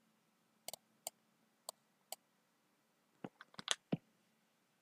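Faint, scattered clicks from a computer's mouse or keys as the map is navigated: a few single clicks in the first two seconds, then a quick cluster of clicks a little past three seconds in.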